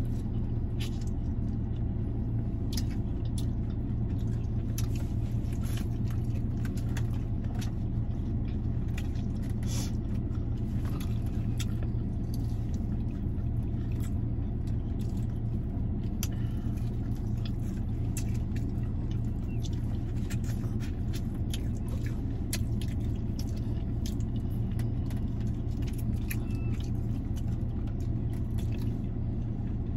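Steady low hum of a parked car idling with the air conditioning on, heard inside the closed cabin. Scattered small clicks and crunches come from eating crunchy fried chicken wings.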